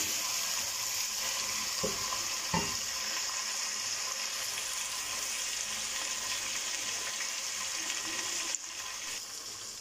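Chicken pieces frying in oil with onions and ginger-garlic paste in a metal cooking pot (handi), a steady sizzling hiss as they are stirred with a wooden spoon; two light knocks of the spoon against the pot about two seconds in.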